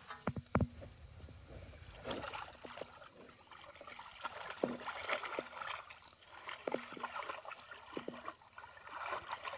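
Shallow pond water sloshing and gurgling as hands and bamboo polo fish traps are worked in it, with short sharp splashes every second or two.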